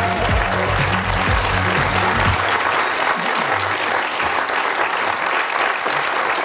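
Studio audience applauding over a jingle with a deep pulsing bass beat. The music stops about two and a half seconds in and the applause carries on.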